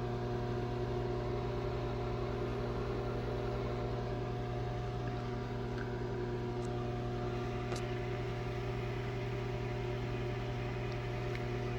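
Sharp Carousel SMC1132CS microwave oven running on power level 6: a steady electrical hum from the magnetron and transformer over the fan. The hum drops away at the very end.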